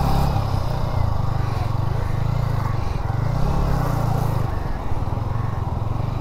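Motorcycle engine revving up and down again and again while the bike is stuck in mud.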